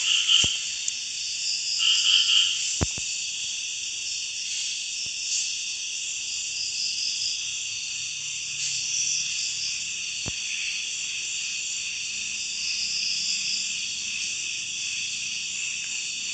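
Steady, dense chorus of night insects and frogs, high-pitched and unbroken, with two louder chirping bursts near the start. A few sharp clicks stand out against it, the loudest about three seconds in.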